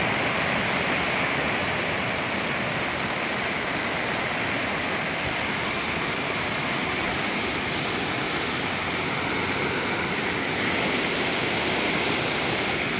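Flood-swollen river rushing past in a steady, unbroken rush of turbulent water: the Río Fonseca in spate after torrential rain.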